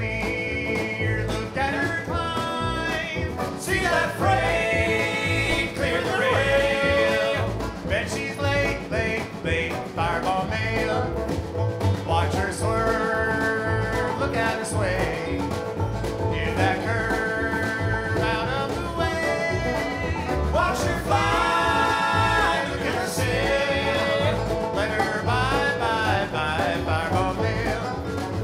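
Bluegrass band playing a fast tune live: banjo, guitar, upright bass and snare drum, with a steady driving beat.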